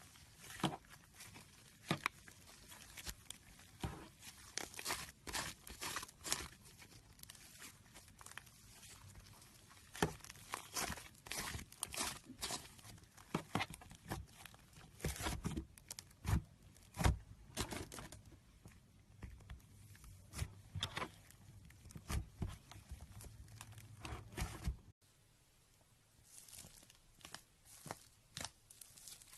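Slime being worked by hand or in a bowl: irregular sticky crackles, pops and tearing sounds, dense through the middle. Near the end it cuts to a quieter stretch with sparser clicks.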